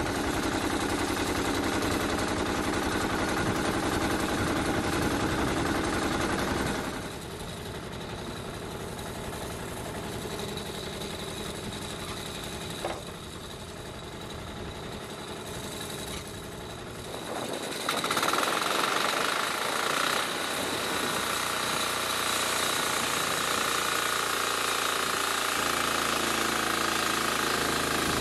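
Engine of a homemade bandsaw mill running at high revs, dropping to idle about seven seconds in while the saw head is pushed along its track, with a single knock in the quieter stretch. About eighteen seconds in it revs up again and holds steady with a high whine as the blade cuts into a larch log.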